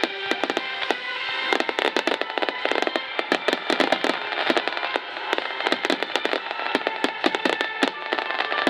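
Starmine fireworks barrage: a dense, irregular run of bursts and crackles, growing thicker about a second and a half in, over music.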